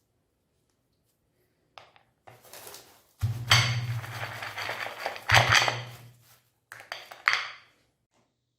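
Metal kitchenware clattering and scraping in several bursts, the loudest about halfway through.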